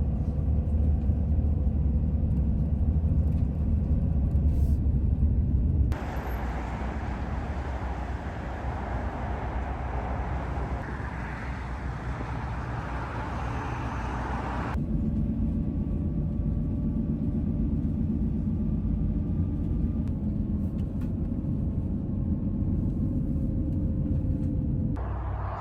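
A vehicle driving: steady low rumble of engine and road noise with a hiss above it. The sound changes abruptly about six seconds in and again near fifteen seconds, like separate clips cut together.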